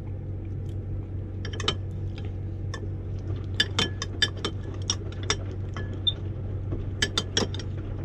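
A metal fork clinking and scraping against a glass food container as potato chunks are scooped out: a dozen or so irregular sharp clinks, over a steady low hum.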